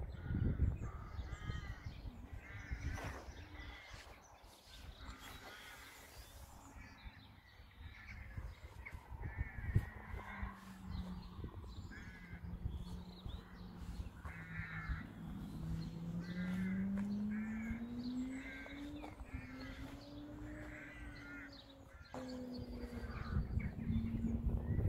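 Crows cawing again and again, over a low rumble. From about a third of the way in, a low hum rises and falls slowly in pitch.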